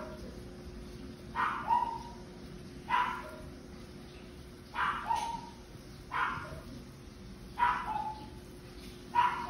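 A dog barking repeatedly, one short bark about every second and a half, some of them doubled.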